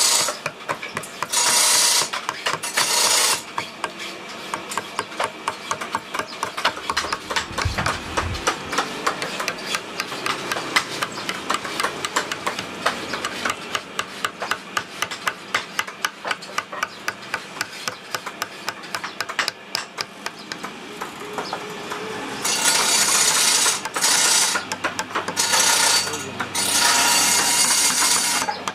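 Woodcarving chisels being struck with mallets as they cut into a carved wooden panel: a rapid run of light, sharp taps, several a second. Bursts of harsh noise come near the start and again in the last few seconds.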